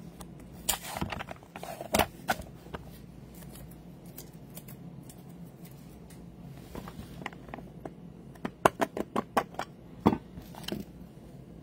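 Clear plastic card case holding a stack of trading cards being handled, giving scattered sharp plastic clicks and taps: a few in the first three seconds, then a quick run of clicks from about seven seconds in, the loudest near the end.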